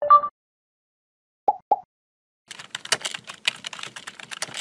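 Rapid computer-keyboard typing clicks, a typing sound effect that starts about halfway through and runs on quickly. Before them come a short tone at the very start and two quick pops about a second and a half in.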